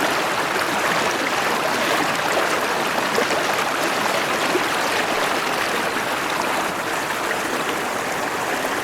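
Forest stream flowing steadily, a dense, even rush of running water.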